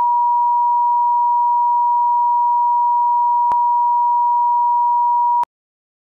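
Bars-and-tone test tone: a single steady, loud, pure electronic beep played over colour bars, with a faint click about three and a half seconds in. It cuts off suddenly about five and a half seconds in.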